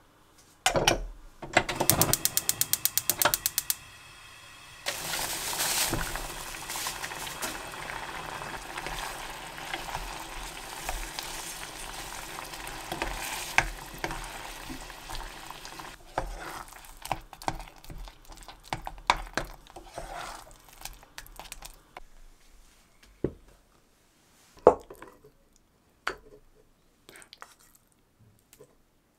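A pot is set down on a gas stove, then the burner's igniter clicks rapidly, about ten times a second, for a second or two. From about five seconds in, creamy rice sizzles in the pot while a wooden spoon stirs it, ending with scattered spoon clinks and scrapes against the pot and bowl.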